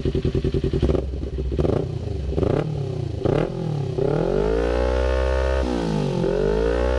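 Kawasaki Ninja 250 FI parallel-twin engine through a DX Generation Racing RVR short full-system aftermarket exhaust, free-revved on the stand. It idles briefly, gets four quick throttle blips about a second apart, then two longer revs that rise and fall, kept short of full throttle.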